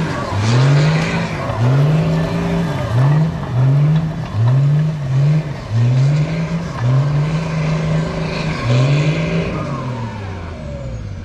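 Toyota pickup's diesel engine under heavy load, revving up and dropping back again and again, about once a second, as it drags a bulldozer track across dirt. It fades toward the end as the truck pulls away.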